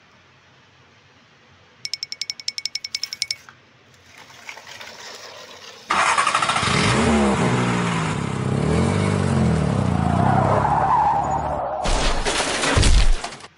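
Engine sound effect: a fast rattle lasting about a second and a half, then, about six seconds in, an engine starting and revving up and down. It cuts off suddenly near the end.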